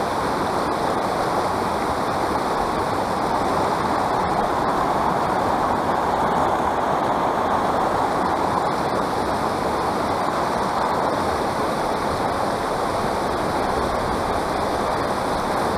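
Shallow river flowing over gravel and small riffles: a steady, continuous rush of running water close to the microphone.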